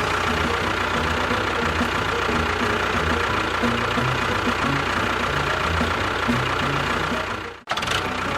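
Small engine idling steadily with a knocking beat, cutting out briefly near the end.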